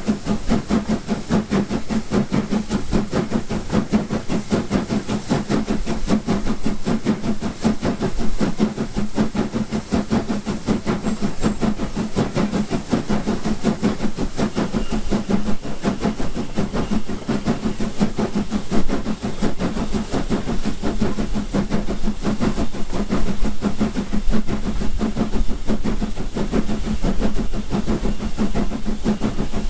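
Southern Railway S15 class steam locomotive No. 506 working hard up a steep gradient, its exhaust beating in a steady, even rhythm with the hiss of steam.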